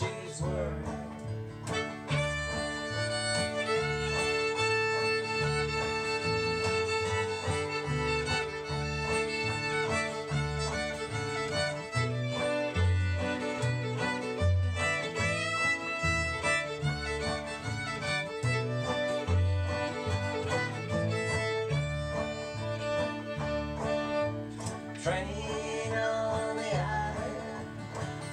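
Old-time string band playing an instrumental break on fiddle, banjo, acoustic guitar and upright bass, the fiddle bowing the lead over the guitar, banjo and a steady bass beat.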